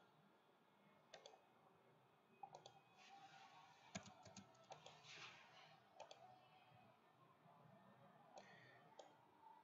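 Faint computer mouse clicks and keyboard keystrokes, a handful of short separate clicks spread through an otherwise near-silent stretch.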